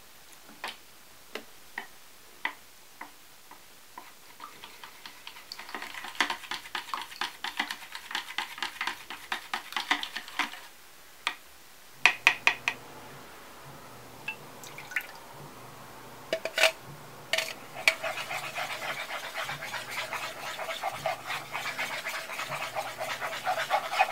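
Wooden chopsticks beating eggs and milk in a glass bowl: a fast, dense clatter of taps against the glass, with a few sharper knocks. Later, over a low steady hum, a silicone spatula scrapes and stirs the egg mixture in a frying pan in a dense run of small scraping sounds.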